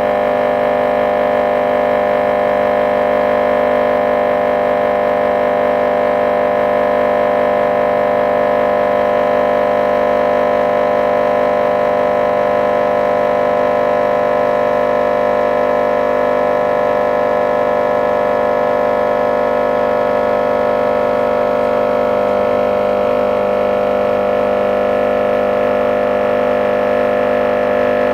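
10-inch car subwoofer driven with a steady test tone at about 1250 W, twice its rated RMS power, in a crash test, giving a loud, steady buzzing tone.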